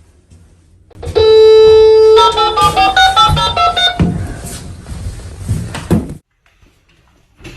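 A very loud steady horn-like tone lasting about a second, then a quick run of musical notes at changing pitches that rings on and cuts off suddenly.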